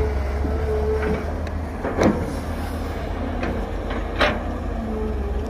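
Excavator's diesel engine running steadily under a faint whine, with two sharp knocks, one about two seconds in and another about four seconds in.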